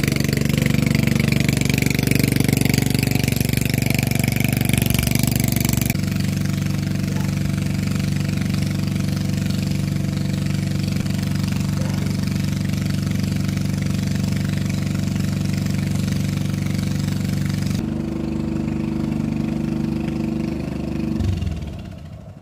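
An engine running steadily, then stopping near the end.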